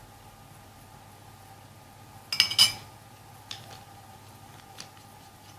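A spoon clinks twice against a dish with a short ringing tone, about two seconds in, followed by a couple of faint taps, while remedy ingredients are being spooned out.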